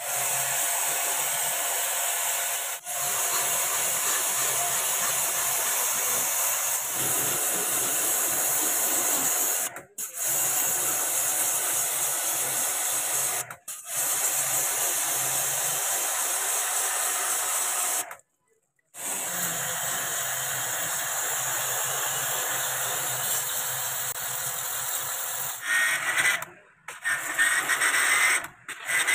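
Pressure washer jet spraying water onto a split air conditioner's indoor coil and fins: a steady hissing spray over a low motor hum. It cuts out briefly several times and turns choppy near the end.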